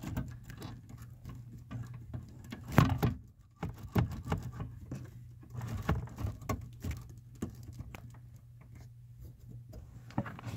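Irregular clicks, taps and rustles of hands pushing a plastic bracket and wiring loom into place, with one louder knock about three seconds in, over a steady low hum.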